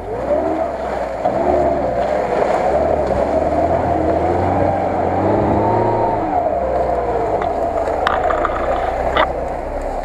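Lada Niva (VAZ-2121) engine pulling through deep mud, its revs rising and falling unevenly. Two sharp knocks come near the end.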